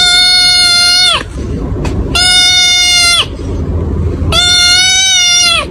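Tabby kitten meowing: three long, loud calls of about a second each, level in pitch and dropping at the end.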